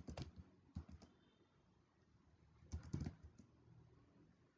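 Quiet keystrokes on a computer keyboard: a quick run of typing in the first second, a pause of about a second and a half, then another short run about three seconds in.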